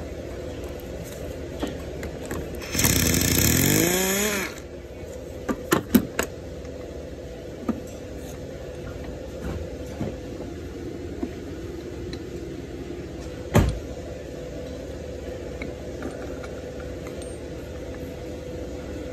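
A power tool runs in one short burst of under two seconds, rising in pitch as it spins up. A few sharp metallic clicks follow, then a single knock, over a steady background hum.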